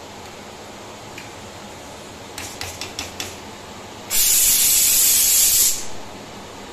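Pressure cooker on a gas burner venting steam at its whistle weight: a few short hissing spurts, then about a second and a half of loud hissing with a high whistle tone. It is released as the weight is lifted with a spoon.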